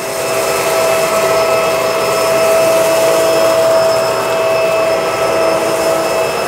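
Bissell MultiClean Allergen Lift-Off Pet upright vacuum (model 2998) running on carpet with its brush roller on: a steady motor whine over the even rush of suction.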